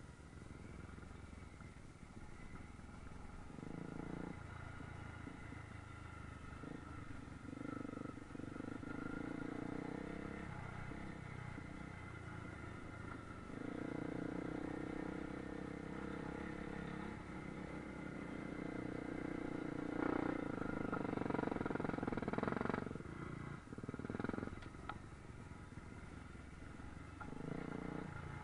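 Honda dual-sport motorcycle engine running under way on a dirt trail, its pitch rising and falling with the throttle, over wind and tyre noise. It is loudest about three-quarters of the way through.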